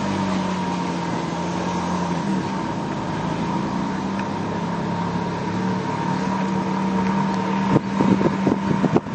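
A road vehicle's engine running at a steady pitch as it drives along. From about eight seconds in, irregular thumps and rattles break in.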